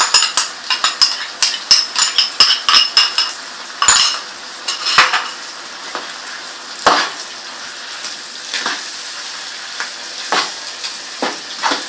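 A spoon stirring a sizzling pan of chopped goat offal, tomatoes and spices with the yogurt just added. Rapid clicks against the pan, about four a second, come for the first few seconds, then occasional single knocks over a steady frying sizzle.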